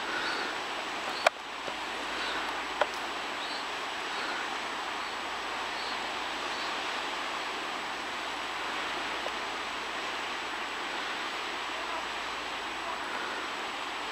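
Steady rushing hiss of surf on a sandy beach. Two sharp clicks come in the first few seconds, and faint high chirps repeat through the first half.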